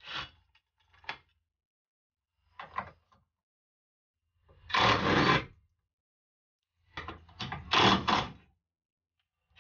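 Cordless impact wrench undoing the front crash-bar bracket bolts, run in a string of separate bursts with pauses between them, the longest about a second.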